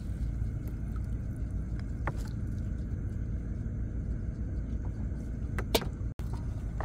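Steady low rumble of a small boat's engine running, with a few faint ticks and one sharp tap near the end. The sound cuts out for a split second shortly before the end.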